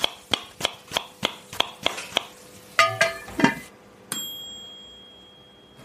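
Closing sound effect: a run of evenly spaced ticks, about three a second, then three short clinking notes, then a single bright ding that rings on and slowly fades.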